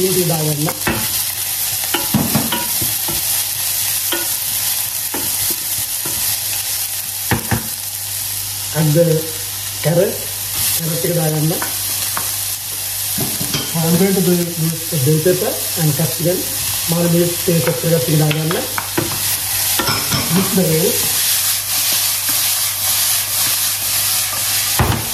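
Chopped onion and carrot sizzling steadily in hot oil with browned garlic in a stainless steel frying pan, a wooden spoon stirring and scraping through them; the pan is tossed near the end.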